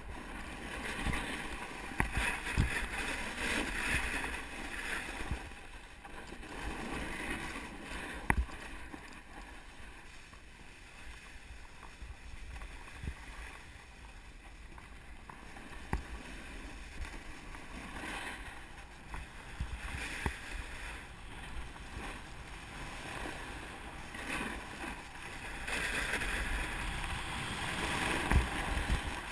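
Snowboard sliding and carving over packed, tracked-up snow: a rushing scrape that swells and fades several times with the turns, mixed with wind noise on the GoPro microphone and a few sharp knocks from the board chattering over bumps.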